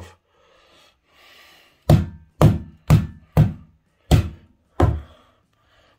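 Hammer blows on rotten, water-soaked floor timber: six dull thunks, roughly two a second, starting about two seconds in.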